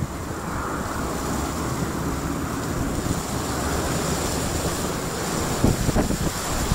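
Wind buffeting the microphone: a steady rushing noise with a few sharper gusts knocking on the mic about six seconds in.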